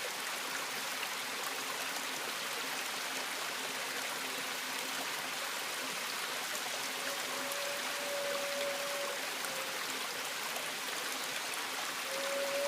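Steady rush of running water, like a stream. A single held tone comes in about seven seconds in, drops out, and returns near the end.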